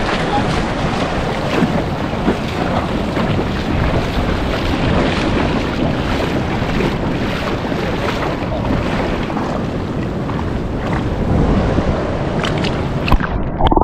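Steady wind buffeting the microphone over the rush of surf, with a few clicks near the end.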